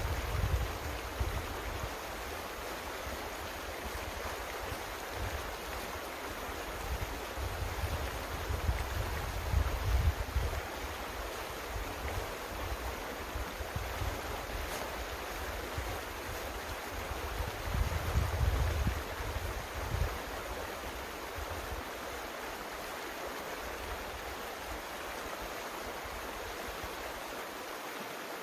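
Small mountain creek running, a steady rush of water, with a few brief low rumbles from wind on the microphone, about eight to ten seconds in and again near eighteen seconds.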